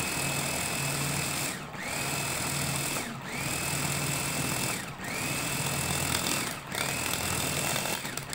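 Electric food chopper (hachoir) with a stainless steel bowl, run in repeated pulses to chop fresh parsley. About five runs of a second and a half or so, each opening with a rising motor whine that then holds steady, with a brief drop between presses.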